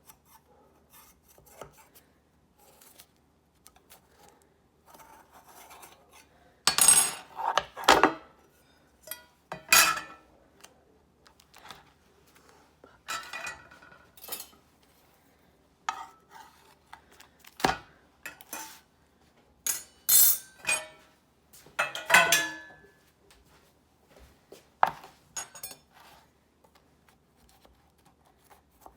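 Intermittent clattering, clinking and scraping of a metal kitchen utensil against a baking pan, in scattered bursts with quiet gaps between them.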